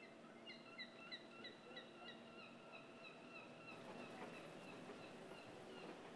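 Faint bird chirping: a long run of short, evenly repeated high notes, about three a second, over a low steady background hum.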